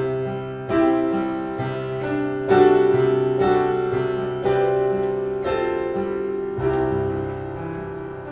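Piano music playing slow, sustained chords, a new chord struck about once a second, with no voice over it: the instrumental close of the song.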